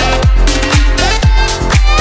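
Background dance music with a steady kick drum on every beat, about two beats a second.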